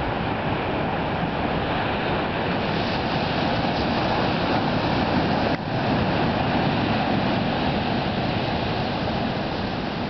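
Ocean surf breaking on the beach, a steady rush of waves mixed with wind on the microphone.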